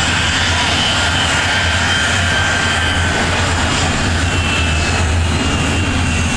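Fiat G.91's Bristol Siddeley Orpheus turbojet running at taxi power as the jet rolls past: a steady whine over a low rumble.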